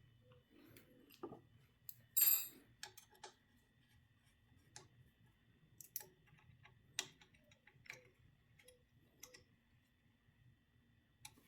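Faint scattered clicks and small metallic taps, with one brighter ringing clink about two seconds in: small parts and connectors being handled while a limit switch is fitted to an electric pallet jack and its cables are plugged in.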